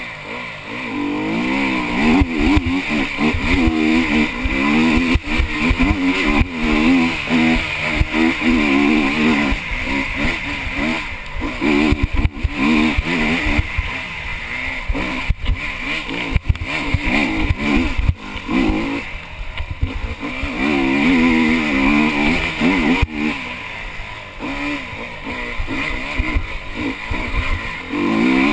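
Honda enduro motorcycle's single-cylinder engine, heard from the rider's helmet, revving hard and dropping back over and over as it is ridden flat out along a tight trail. Frequent knocks and rattles come from the bike jolting over rocky ground.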